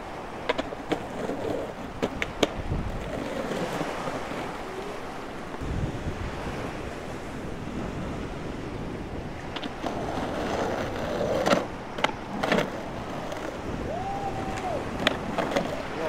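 Skateboard pops, landings and wheel clacks on concrete, in several clusters of sharp knocks, over a steady wash of sea waves and wind.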